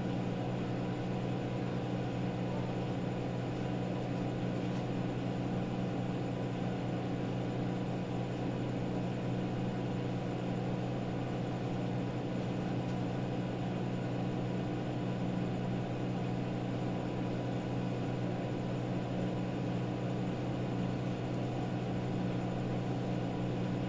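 A steady low hum with a light hiss behind it, unchanging throughout: machine or fan room tone with no distinct events.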